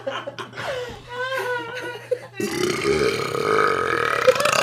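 A boy burping: shorter voiced sounds early on, then a long, rough burp that starts suddenly about halfway through and lasts about two seconds.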